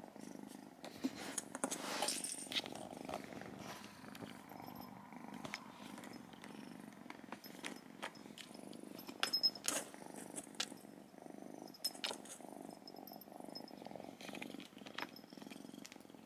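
Ragdoll kitten purring steadily, with scattered light clicks and taps as she paws at a plastic ball-track toy.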